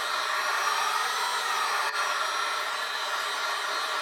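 Handheld hot-air blower running steadily with an even rushing hiss, heating the iPad's glass to soften the adhesive under the digitizer so it can be pried up.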